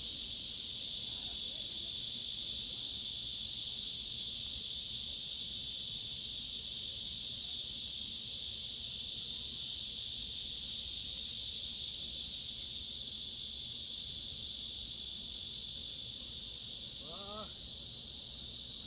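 Cicadas buzzing in one steady, unbroken high-pitched drone, with no pulsing or pauses.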